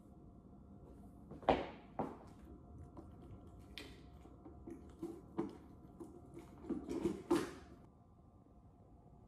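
Small objects being handled and set down on a hard surface: a few sharp knocks with brief rustles in between. The loudest knock comes about a second and a half in, and a quick cluster follows about seven seconds in.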